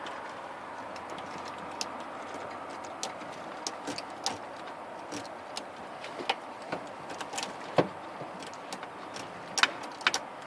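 Irregular small metallic clicks and ticks of a pick and tension tool working the pins of a Chevy Astro's ignition lock cylinder, over a steady background hiss. A few sharper clicks come near the end.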